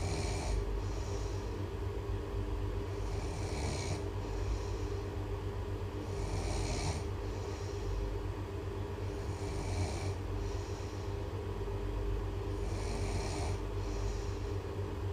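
Snoring in an even rhythm: a loud, breathy snore about every three seconds, each followed by a shorter puff of breath, over a steady low hum.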